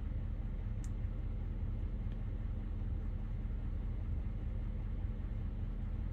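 Duramax L5P turbodiesel V8 idling steadily, a low rumble heard from inside the truck's cab, with a faint click about a second in.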